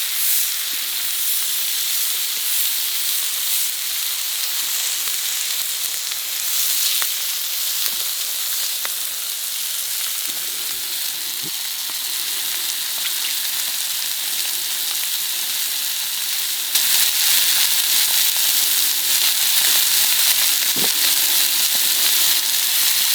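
Tomahawk steaks searing on a very hot griddle pan over a fire: a steady sizzle of meat and fat frying, with a few faint crackles. It gets noticeably louder about three quarters of the way through.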